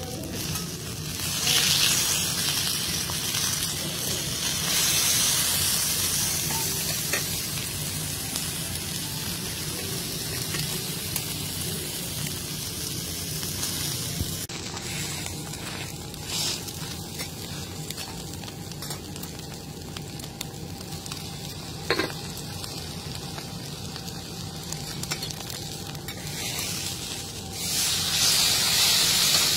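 Thick beef steak sizzling as it sears on a flat steel teppanyaki griddle, a steady frying hiss that swells louder about two seconds in and again near the end. A single sharp tap comes about two-thirds of the way through.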